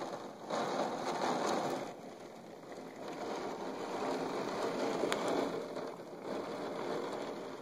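Heavy rain falling, a steady hiss that swells and eases in level every few seconds.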